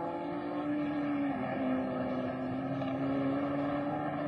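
Engine of a 1960s single-seater racing car running at speed, one steady note that drops slightly in pitch a little over a second in and then holds.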